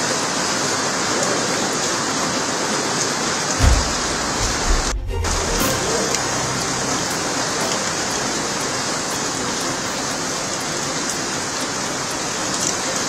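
Heavy cyclone rain pouring steadily onto a wet road, a dense even hiss. There are a couple of low thumps near four and five seconds, and the sound briefly cuts out about five seconds in.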